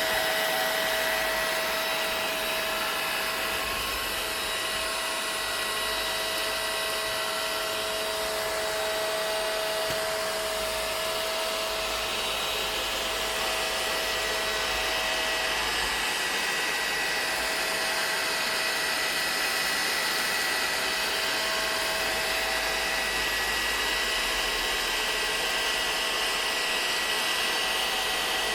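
Vacuum cleaner motor running steadily, a constant whooshing hiss with a faint high whine held on a few steady pitches.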